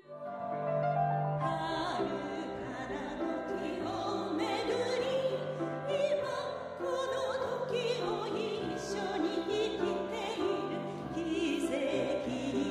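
Classical-style background music: a solo voice singing in an operatic style with a wavering tone over sustained instrumental accompaniment.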